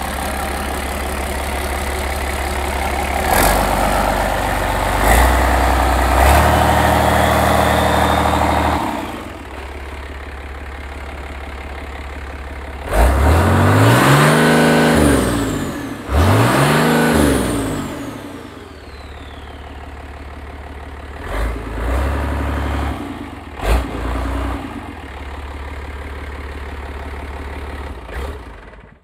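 Iveco N67 six-cylinder marine diesel engine running on a test stand. It holds at raised revs, drops to idle about nine seconds in, is revved up and back down twice, and then idles again.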